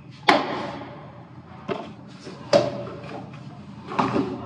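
A plastic jar of tea leaves tossed into the air and caught by hand. Four sharp knocks, each with a short echo off the tiled walls, the first and loudest just after the start and the others about a second or so apart.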